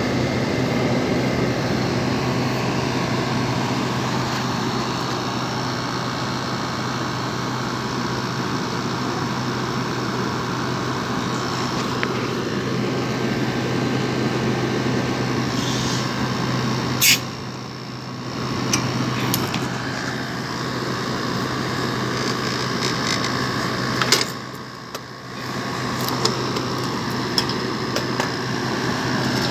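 Window-type air conditioner running with its casing off, compressor humming and fan blowing steadily, after a recharge with R22 refrigerant that has it cooling again. The noise briefly drops, with a click, twice in the second half.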